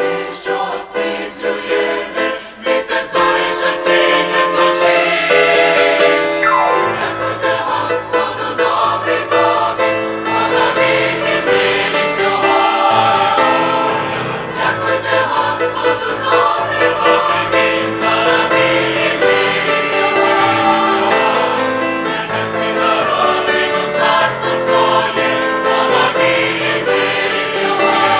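Mixed choir of women's and men's voices singing a hymn in parts, in Ukrainian, with the lower voices filling out the sound a few seconds in.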